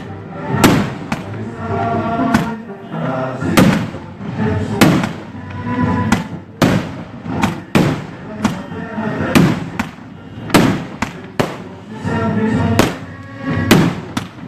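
Fireworks rockets bursting overhead in a rapid string of sharp bangs, about one or two a second, some overlapping.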